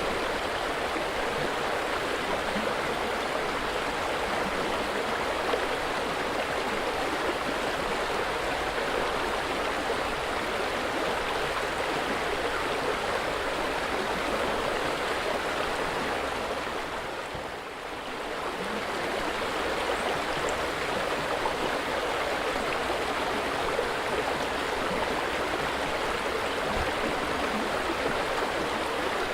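River water flowing steadily, an even rushing with no pauses. About two-thirds of the way through it dips briefly in level and then comes back.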